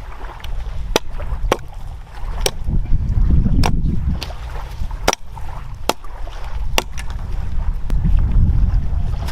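Sharp, irregular wooden knocks, roughly one a second, typical of a knife chopping into a wooden pole, over a steady low rumble of wind on the microphone.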